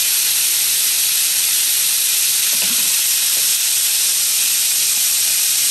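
Oysters frying in a pan of hot oil: a steady, even sizzle with the hiss of the bubbling oil.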